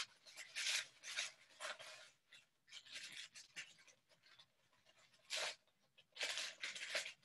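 Pink tissue paper crinkling and rustling in the hands as the layers of a paper pom-pom flower are pulled apart one by one. It is a faint, irregular string of short crinkles.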